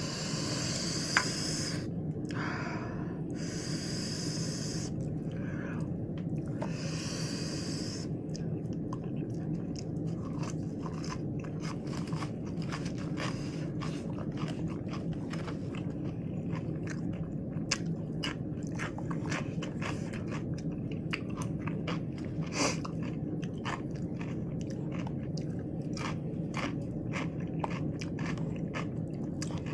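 Close-up chewing of crunchy lettuce wraps with raw cucumber and peppers. Three longer crunching bursts come in the first eight seconds, then rapid crackly chewing runs on. A steady low hum lies underneath.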